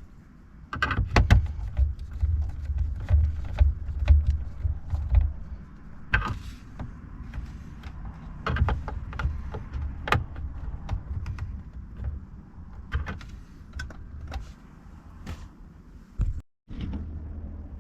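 Hands working on hardware: scattered clicks and knocks of parts and tools being handled over a low rumble. The sound cuts out for a moment near the end.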